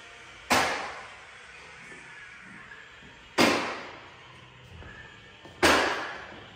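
Three whoosh sound effects, each a sudden hiss that fades away within about a second, over a faint steady room noise.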